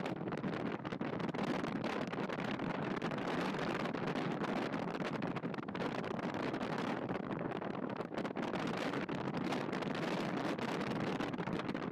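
Steady rushing of the Chikuma River in flood after a typhoon, the swollen water running fast and hard.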